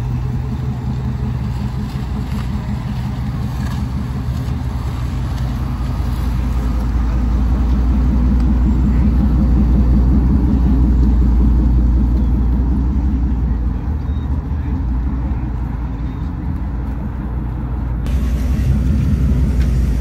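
Lowered Chevrolet C1500 pickup's engine running as the truck creeps along at low speed. It is a steady low hum that grows louder for several seconds as the truck comes close, then eases off.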